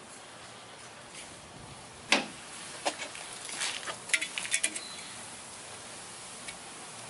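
Light clicks and taps of a tape measure being handled against a stopped table-saw blade and fence: one sharp tap about two seconds in, then a quick run of small clicks around four seconds in.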